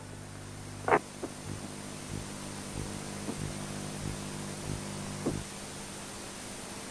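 Background noise of an old archive recording: steady hiss and a low mains-type hum, with scattered clicks and pops, the loudest about a second in.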